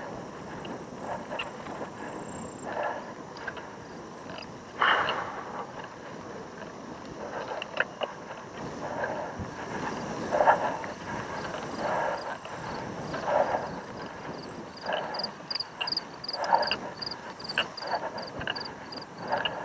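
Cyclocross racer breathing hard and rhythmically while climbing on the bike, a heavy puff about every second and a half. Under it runs a steady rush of noise from the bike rolling over grass.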